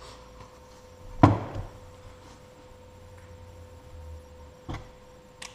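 A steel ruler set down sharply once on the gasket sheet and bench, a loud clack about a second in, followed by two lighter taps near the end. A faint steady hum runs underneath.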